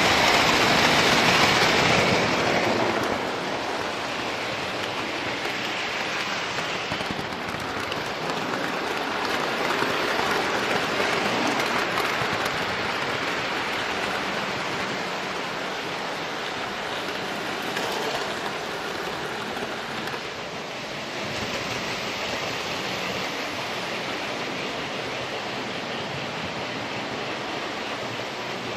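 Train running: a steady rushing noise, loudest for the first few seconds, then settling to a lower, even level with slow swells.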